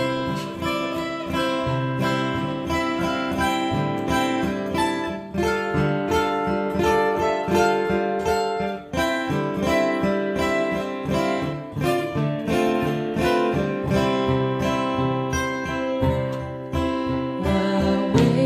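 Steel-string acoustic guitar playing an instrumental introduction of steadily strummed chords, with no voices.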